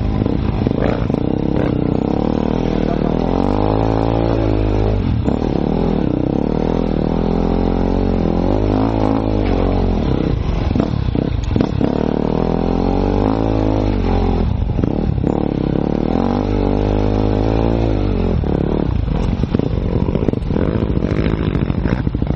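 Enduro motorcycle engine heard close from the rider's helmet camera, its pitch rising and falling again and again as the throttle is opened and closed on a rough, muddy trail. Clatter and scraping from the bike over the uneven ground run underneath.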